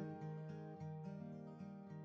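Background music led by acoustic guitar, plucked and strummed notes, slowly getting quieter.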